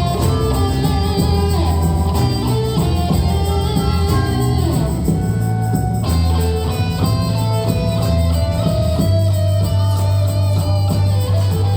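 Live instrumental ensemble music led by guitars, plucked acoustic and electric guitars over a steady bass line.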